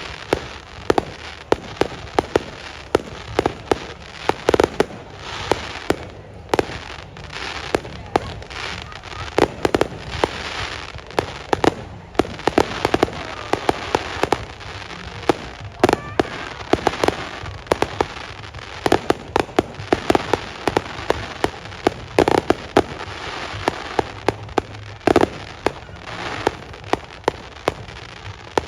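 Fireworks display going off: many sharp bangs from bursting shells in quick, irregular succession, with steady noise between them.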